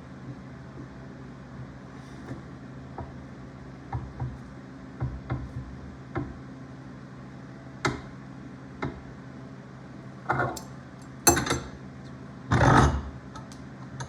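Brass pipe fittings and small hand tools knocking and clinking as they are handled: scattered light taps, then louder clatter about ten seconds in and a longer rattle near the end. A steady low hum runs underneath.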